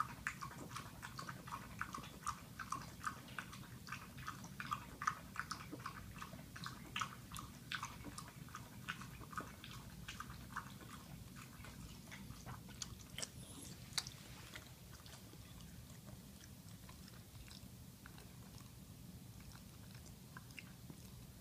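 Scottish Terrier eating from a plastic bowl: quick, close biting and chewing clicks, dense for the first two-thirds, then thinning to a few scattered clicks as she finishes.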